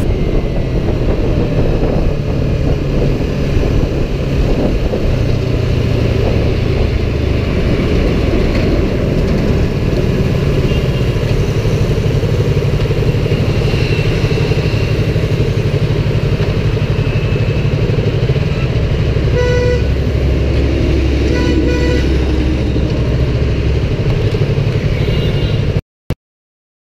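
Yamaha YZF-R3's parallel-twin engine running under way in traffic, its note rising and falling as the revs change, over steady road and wind noise. Vehicle horns honk briefly twice, past the middle, and the sound cuts off suddenly near the end.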